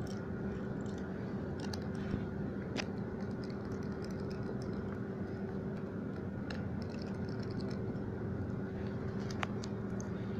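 Steady background hum with a few faint, sharp clicks scattered through it, about four in all. The clicks come from small tools and parts being handled while the screws of a tablet's rear-speaker housing are taken out.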